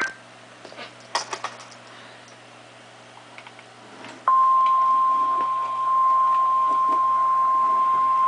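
A few faint clicks, then about four seconds in the NOAA Weather Radio warning alarm starts abruptly: a single steady 1050 Hz tone that signals a warning broadcast is about to follow.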